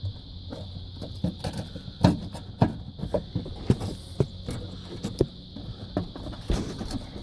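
Irregular small clicks, knocks and scrapes of hands working and wiggling the stuck plastic fittings on top of a car's fuel pump module, trying to work them free.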